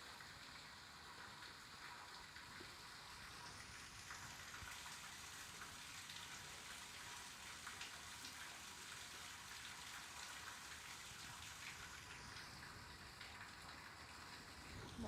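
Water running and trickling into a street sewer, a faint, steady splashing crackle. A softer rush of hiss swells up a few seconds in and fades away again near the end.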